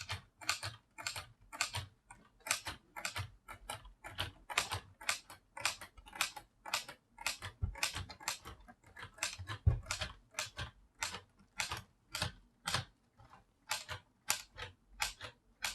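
Keys being typed one after another on a LEGO Ideas Typewriter (set 21327), each press swinging a plastic type bar up to hit the type basket. The result is a run of sharp plastic clicks at about three or four a second, slightly uneven like real typing.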